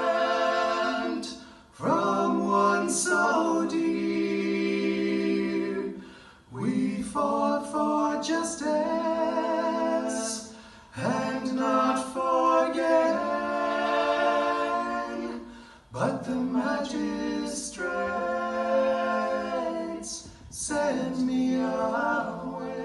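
Male vocal trio singing a cappella in close harmony, in long held phrases with short breaks between them.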